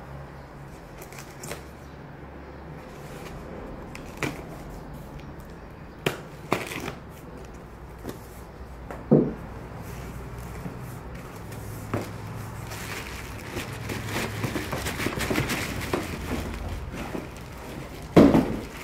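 A cardboard shipping box being handled and opened by hand: scattered knocks and scrapes of the cardboard flaps, then a stretch of rustling and crinkling as a plastic-wrapped item is lifted out, with the loudest thump near the end.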